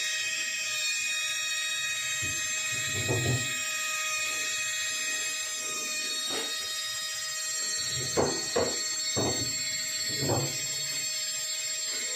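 Jeweller's rotary handpiece running with a steady high-pitched whine while a gold ring is held against its spinning bit for engraving work. A few short knocks sound about three and six seconds in, then several more between about eight and ten and a half seconds.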